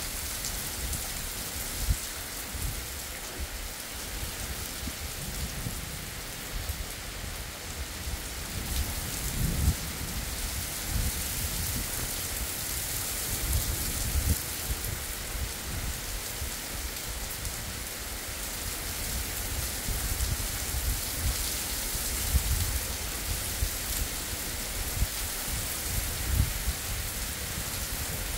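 Heavy rain pouring onto a flooded road, a steady dense hiss, with an uneven low rumble underneath that swells twice.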